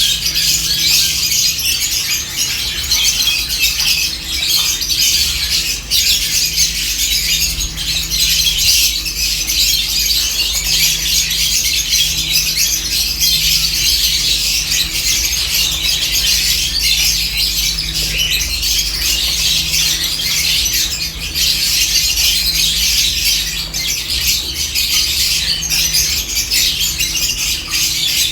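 A flock of lovebirds chattering: a dense, continuous mass of shrill chirps and squawks overlapping without pause.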